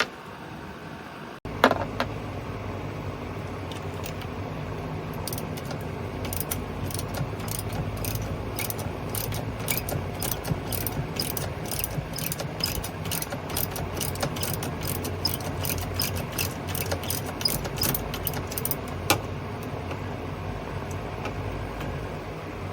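A hand ratchet wrench clicking in a fast, even run of about three clicks a second for some fifteen seconds, over a steady low hum.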